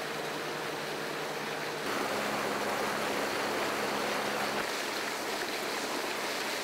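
Small fishing boat's outboard motor running under way, with water rushing against the hull. The steady engine note changes abruptly twice.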